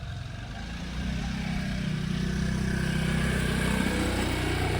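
A motor vehicle's engine running close by, getting louder about a second in, over general street noise.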